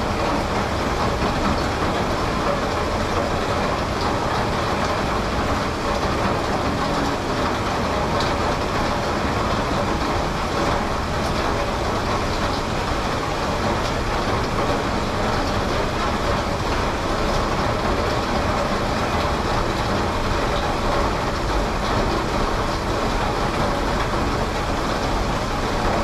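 Heavy rain pouring steadily, a loud, dense and even hiss.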